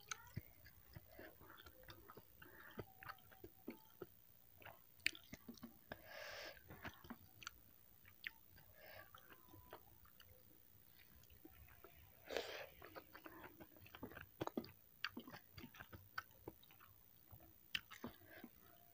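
Soft chewing and mouth sounds of someone eating soupy fried instant noodles, with scattered small clicks of wooden spoon and fork against the plate.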